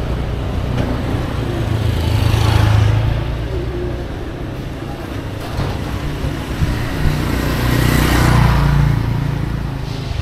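Street traffic: a steady rumble of motor vehicles, with two close pass-bys swelling and fading about two to three seconds in and again about eight seconds in.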